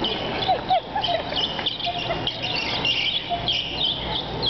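Shopping cart squeaking as it is pushed along, a run of short, high chirping squeaks that repeats over and over.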